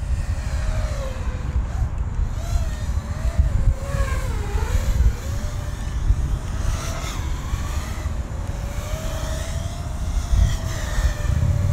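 A 5-inch FPV racing quadcopter flying close by on DAL Fold F5 folding 5.1-inch props, its motors and props whining in a pitch that wavers up and down with throttle, dipping briefly near the middle. The props sound like ordinary rigid props, with no flutter.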